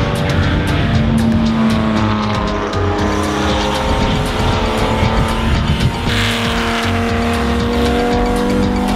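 A race car's engine running hard at speed on track, its pitch drifting as it pulls, with a change in engine note about six seconds in, as at a gear change.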